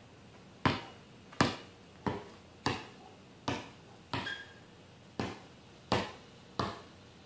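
Basketball being dribbled on a concrete driveway: about ten sharp bounces, roughly one every 0.7 seconds, each with a brief ring.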